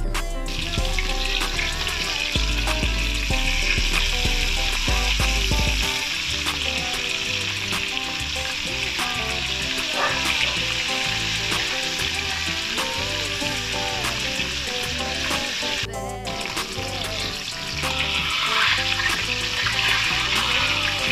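Flour-dusted tilapia frying in hot oil in a metal wok, a steady loud sizzle that drops out briefly about two-thirds of the way through. Background music with a bass beat plays underneath.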